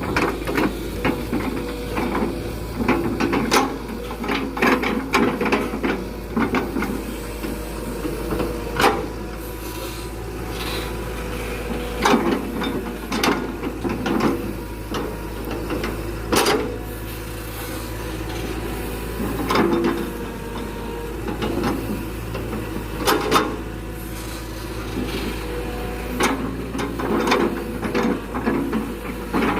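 Excavator engine running steadily while rubberwood logs knock and scrape against each other, with irregular sharp wooden knocks, the loudest about 9, 12, 16 and 23 seconds in.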